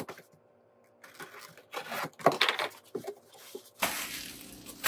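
A cardboard box being opened by hand: packing tape slit with a box cutter and the flaps scraped and pulled open, a run of irregular scrapes and rustles. A steady hiss comes in near the end.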